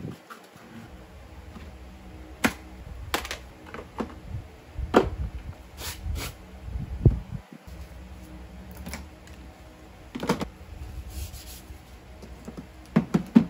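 Scattered clicks and knocks of objects being handled, a few seconds apart, over a steady low hum.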